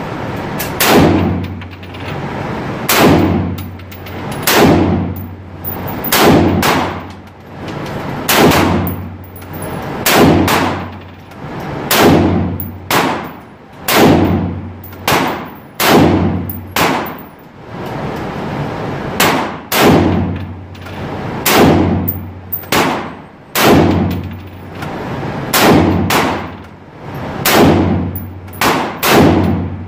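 Gunshots fired one at a time at an indoor shooting range, about one every second or two, each loud crack ringing off the range walls; a quicker run of three comes near the end.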